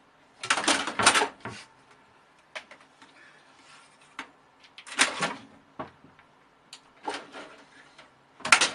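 A kitten scrabbling behind a computer tower and pawing at a cloth curtain: short bursts of rustling and scraping, repeated several times, with a few small knocks in between.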